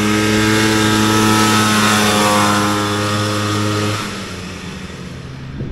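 Snowmobile engine running at a steady pitch while the sled rides across the yard. It drops away sharply about four seconds in.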